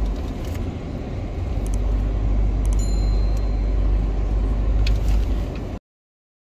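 A vehicle driving slowly along a sandy track, heard from inside the cab: a steady low rumble with a few knocks. It cuts off suddenly near the end.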